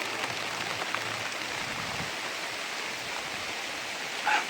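Steady hiss of rain and running water, with a few faint knocks.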